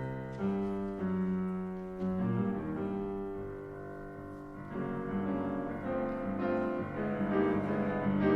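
Piano playing the opening introduction of a three-part choral song: chords struck every second or so and left ringing, building up a little in the last few seconds.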